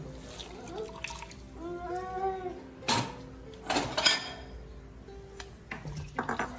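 Background music over wet kitchen handling sounds: sliced sour starfruit being squeezed by hand with salt, juice dripping, with two louder squishes about three and four seconds in.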